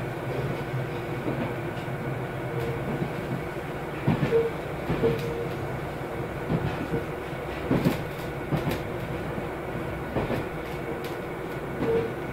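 KiHa 201 series diesel railcar running along the line, heard from on board: a steady running noise with irregular clicks and thumps from the wheels on the track.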